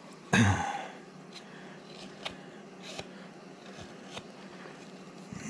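Carving knife shaving a very hard wooden figure: light scraping cuts with scattered small clicks as the blade takes thin shavings. A short voice sound about half a second in is the loudest thing.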